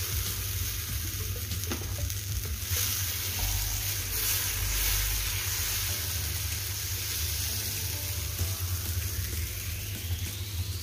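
Horse gram dosa batter sizzling as it is poured onto a hot dosa tawa and spread out in circles with a ladle, a steady hiss with the ladle scraping through the batter.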